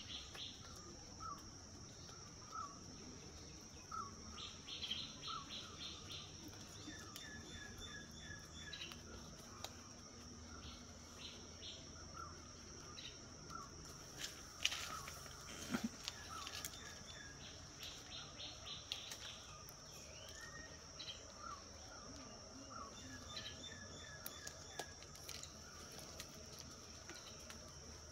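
Steady high-pitched insect drone with birds chirping repeatedly over it, short calls coming every second or so. A few sharp knocks and rustles come about halfway through.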